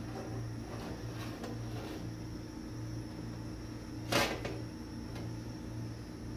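A steady low hum with one sharp knock about four seconds in, and a few faint ticks in the first two seconds.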